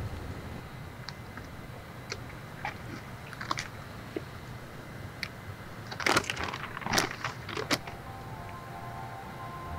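A folded sheet of paper being handled and unfolded, crackling in scattered sharp crinkles that are loudest and thickest about six to eight seconds in. Soft music fades in near the end.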